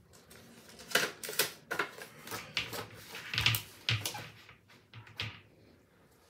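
Lash packaging and cards being handled: a run of quick, irregular clicks and rustles that thins out after about five seconds.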